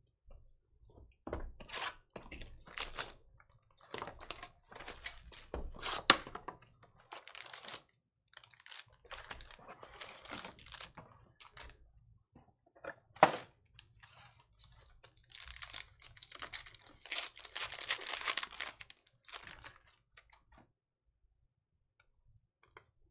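Panini Prizm hobby boxes and their foil card packs being opened and handled: bursts of tearing and crinkling, with two sharp knocks about six and thirteen seconds in. A longer stretch of crinkling follows as a foil pack is torn open, then it goes quiet.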